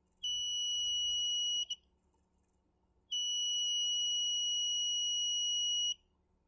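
Homemade security alarm's buzzer, set off by its sensor, sounding one steady high-pitched tone. It sounds for about a second and a half, gives a short blip, then sounds again for about three seconds.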